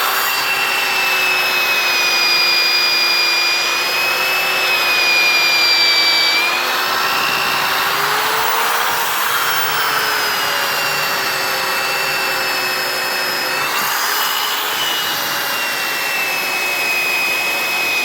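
Electric drill running steadily as it bores down through a wooden log with a long, roughly 2-foot, 1/2-inch electrician's bit. Its whine wavers a little in pitch as the bit takes load.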